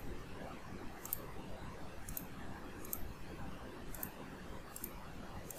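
Faint sharp clicks, about one a second, over a low steady hiss.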